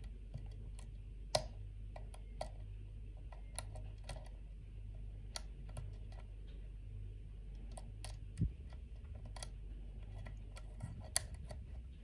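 Lockwood oval pin-tumbler cylinder being single-pin picked: irregular small, crunchy metallic clicks from the pick and pins, over a steady low hum. The picker puts the crunchiness down to threaded or rough-serrated pins.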